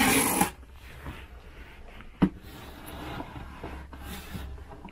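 Cardboard box being opened by hand: the flaps scrape and rub with a loud rush at the start, then softer handling of the packaging, with one sharp knock about two seconds in.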